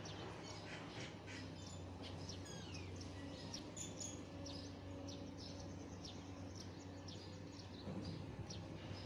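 Birds chirping and calling in many short notes, over a steady low hum.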